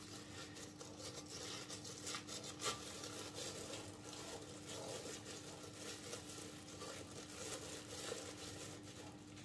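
Thin plastic freezer bag crinkling and rubbing as hands press and smooth it against the inside of a cake mould; faint, irregular rustling with small crackles.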